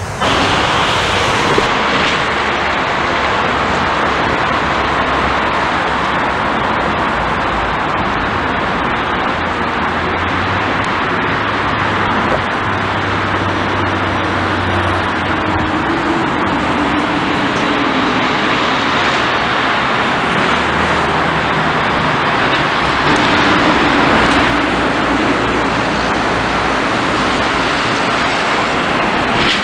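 Road traffic going by: a steady wash of tyre and engine noise, with the deeper hum of buses and trucks swelling and fading as they pass.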